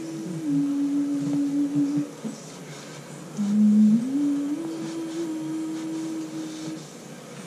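A woman humming a slow tune in long held notes that step up and down, with a short break a little past two seconds in. She hums to calm the cats.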